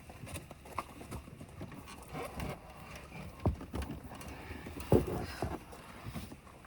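Scattered knocks and light clattering, with two louder thumps about three and a half and five seconds in.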